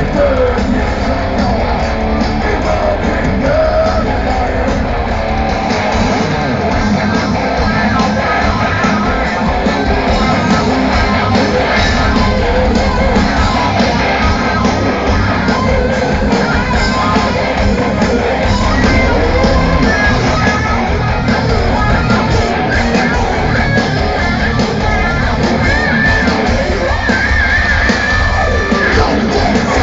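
Thrash metal band playing live: distorted electric guitars and drums with shouted vocals, loud and steady, recorded from within the crowd in a hall.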